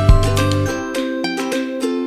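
Background music: a bright plucked-string melody, ukulele-like, over a deep thumping beat about twice a second that drops out under a second in, leaving the plucked strings.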